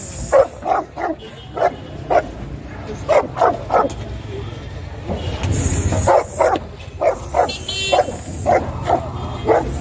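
A dog barking repeatedly, in short runs of two to four quick barks with pauses between them, over a steady low background rumble.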